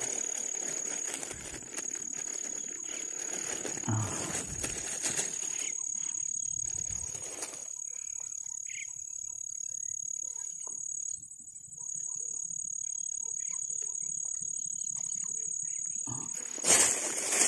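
Insects calling with a steady high-pitched trill, joined about halfway through by a second, higher steady tone; rustling and handling noise in the first half.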